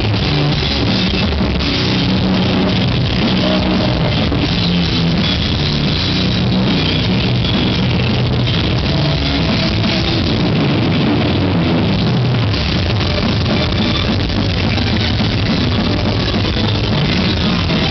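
Death metal band playing live: distorted electric guitars over a drum kit, loud and dense without a break.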